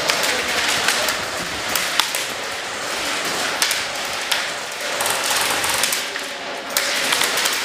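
Steady noisy din of an indoor airsoft game, broken by scattered sharp clicks and taps, one standing out about two seconds in.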